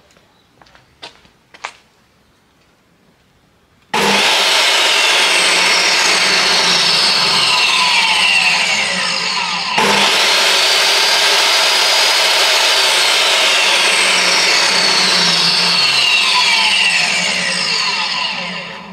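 DeWalt DW745 table saw's universal motor and blade: a few light clicks of the switch, then the saw starts suddenly about four seconds in and runs loud and steady with a high whine, a sharp click near the middle, and winds down near the end. The saw has a stop-start fault that the owner suspects is in its power switch.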